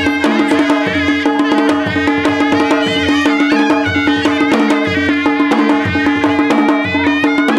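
Traditional folk dance music: a regular drum beat under a steady held drone and a busy melody.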